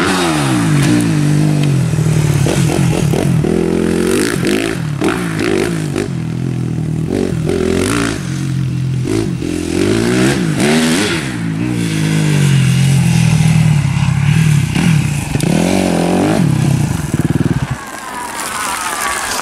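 Motocross dirt bike engine revving up and down over and over, its pitch rising and falling with the throttle as it rides the jumps and turns of a dirt track. The engine sound drops away near the end.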